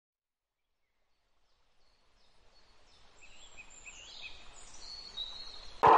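Outdoor nature ambience fading in from silence, with faint bird chirps and high whistles. A sudden loud sound cuts in at the very end.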